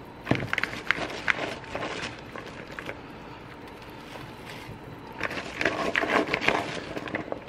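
Handfuls of chopped raw cabbage rustling and crackling as they are dropped into a pot of broth, in two bouts: one starting just after the beginning and one about five seconds in.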